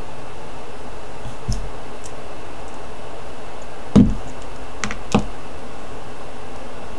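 Jewelry pliers and small metal findings clicking and tapping as they are handled on a cutting mat, over a steady hiss. One louder knock about four seconds in, with two lighter clicks about a second later.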